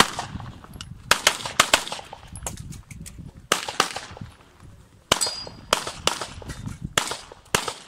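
Rapid handgun fire in an IPSC practical-shooting stage: sharp shots in quick pairs and short strings, with brief pauses between the groups as the shooter moves between targets.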